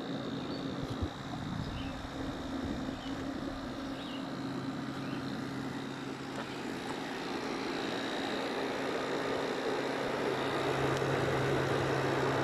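1990 General Electric Carry Cool 6,000 BTU air conditioner running with its compressor on: a steady hum under the even rush of the fan, growing gradually louder toward the end.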